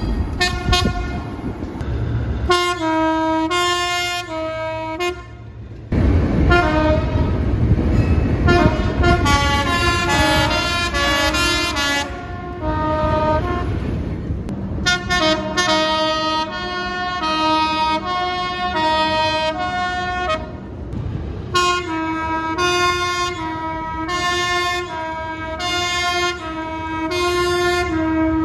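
Train horn with several tones sounded in a quick series of short blasts, switching back and forth between pitches over and over. A heavy low rumble of the moving train runs under the horn for several seconds about a third of the way in.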